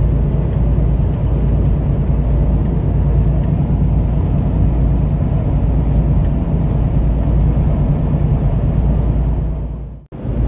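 Steady low rumble of a semi truck driving at highway speed, heard from inside the cab: engine and road noise. It cuts out suddenly near the end.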